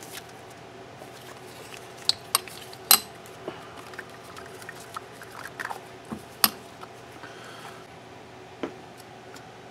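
Light handling noise with a handful of sharp, separate clicks and clinks, spaced irregularly, from gloved hands fitting a new base gasket over the cylinder studs of a Honda ATC250R two-stroke engine's bare crankcase beside the piston.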